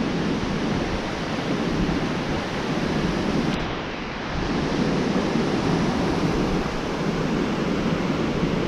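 Ocean surf washing onto the beach, a steady rushing noise that eases briefly about four seconds in and then swells again.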